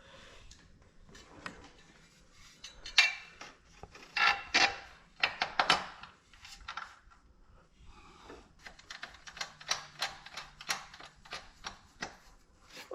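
Metal tools and exhaust hardware clinking and tapping: scattered knocks, several of them ringing, then a quicker run of light clicks over the last few seconds.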